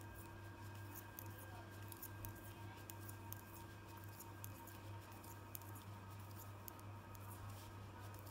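Metal knitting needles giving faint, irregular clicks as stitches are worked by hand, over a steady low hum.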